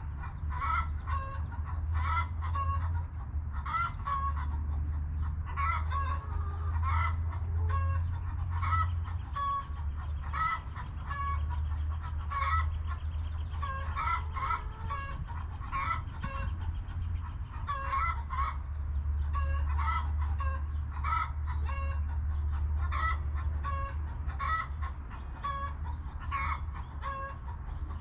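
Backyard hens clucking continuously: many short, repeated calls overlapping one another, over a steady low rumble.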